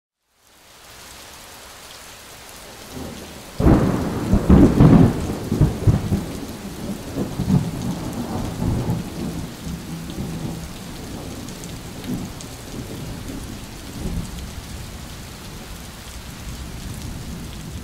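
Thunderstorm: steady rain, then a loud thunderclap about three and a half seconds in that rolls and rumbles for several seconds, followed by fainter rumbles of thunder under the rain.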